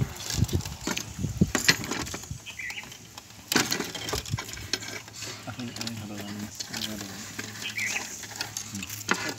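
Thin steel wires stripped from an OPGW cable being handled, giving a string of light metallic clicks and clinks as they tap against each other and the table.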